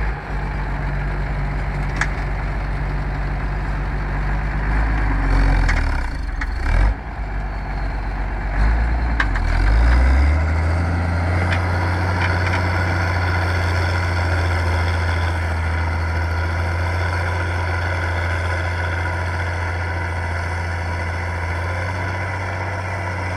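Ursus 1604 tractor's diesel engine working under load as it pulls a reversible plough through the soil. The engine note shifts between about five and ten seconds in, then settles to a steady low running note.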